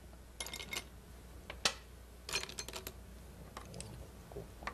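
Go stones set down on a board one after another as a joseki sequence is laid out: several sharp clicks in small clusters, the loudest about one and a half seconds in.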